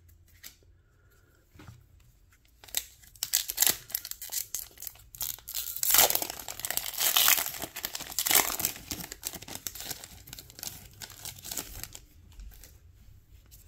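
A foil Pokémon booster pack wrapper is torn open and crinkled by hand. The dense crackling starts about three seconds in and is loudest in the middle, then dies down near the end.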